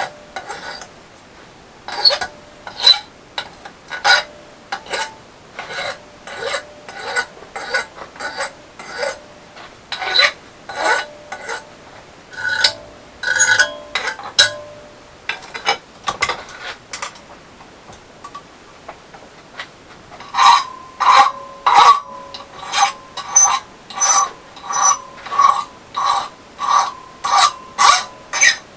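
Hand file rasping on a bent steel rod in steady strokes, about one and a half to two a second. There is a pause partway through. In the last stretch the strokes set the metal ringing.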